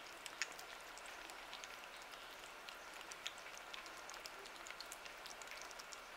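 Two kittens eating chunks of wet cat food in gravy from a glass dish: faint, irregular wet smacking and chewing clicks over a low hiss.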